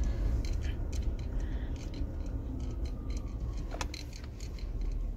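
Low, steady rumble of a car heard from inside the cabin, with irregular light clicks and taps over it.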